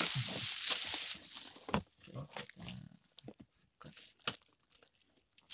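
Bubble wrap crinkling and rustling as a cardboard box is lifted and turned on it. The rustle is loudest in the first second or so, then gives way to scattered light clicks and knocks of the box being handled.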